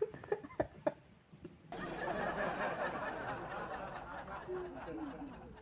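Fake snoring by a man: a few short clicks and snorts, then one long, noisy snore of nearly four seconds, starting about two seconds in.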